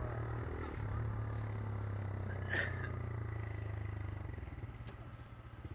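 Motorcycle engine running steadily while riding, with road and wind noise; the level eases off a little near the end. A brief high squeak sounds about two and a half seconds in.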